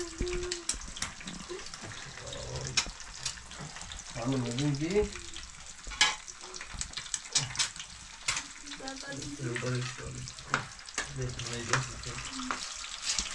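Heavy rain falling as a steady crackling hiss, with scattered sharp clicks. A person's low voice comes through a few times.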